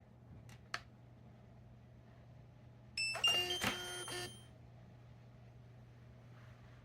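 A short bright ring of several chime-like tones, starting one after another with a clatter about three seconds in and dying away about a second later. Two small clicks come before it, and a faint low hum runs underneath.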